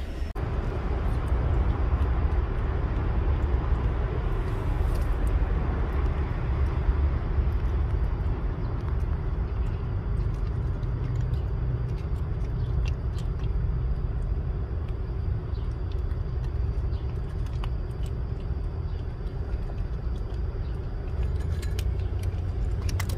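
Steady low outdoor rumble, with a few faint clicks now and then.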